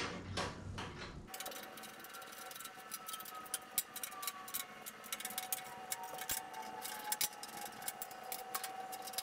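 Quick, irregular small metal clicks and ticks as the 16 mm nuts are worked off the bolts through a bandsaw's table trunnion and the bolts are drawn out, with a faint thin tone slowly falling in pitch behind them.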